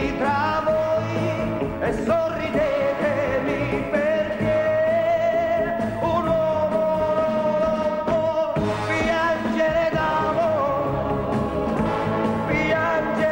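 A male voice sings a slow Italian pop ballad over a backing band, holding long notes with vibrato.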